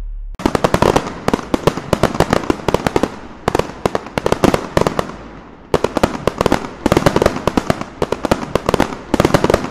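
Fireworks crackling and banging in several waves of rapid cracks, each wave starting loud and thinning out, after the last held note of the music cuts off just at the start.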